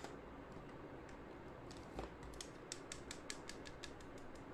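Quiet, quick light clicks and ticks, about four or five a second, starting a little after halfway, from makeup being handled.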